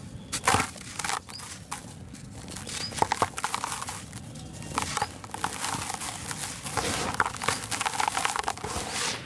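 Dry sand-and-cement lump crunching and crackling as it is squeezed and crumbled by hand, with sharp crunches about half a second and three seconds in. Near the end, gritty powder sifts and pours from the hands.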